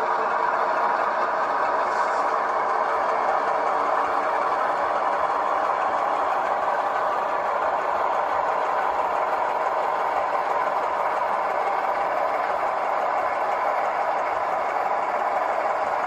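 Locomotive running steadily during a switching move: a continuous mechanical hum and rattle with no horn blasts or coupling clanks.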